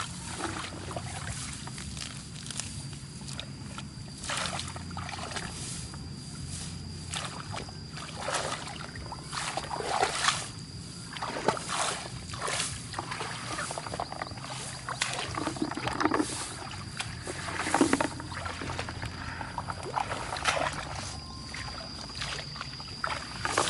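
Irregular splashes and squelches of muddy water as hands dig and grope in a mud hole, over a thin steady high-pitched whine.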